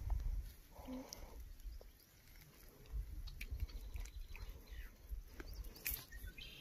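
Wind gusting on the microphone, coming in uneven swells, with a short voice-like sound about a second in and a few light clicks, the sharpest near the end as a spinning rod is cast.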